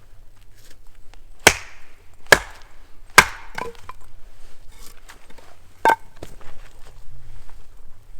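Wood being chopped or split: three sharp strikes about a second apart, then a fourth a few seconds later, with lighter knocks and cracks of wood between.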